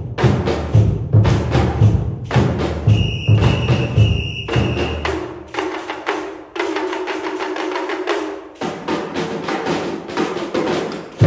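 Percussion ensemble playing: rapid snare-drum strokes over a driving pattern of low drum hits. About halfway the low drums drop out for a few seconds while pitched notes ring, then the low hits come back near the end; a brief high held tone sounds around three seconds in.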